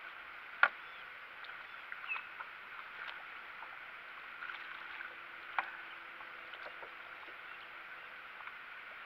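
Water lapping and splashing against the hull of a small boat, with a few sharp knocks, the loudest about half a second in and another near the middle.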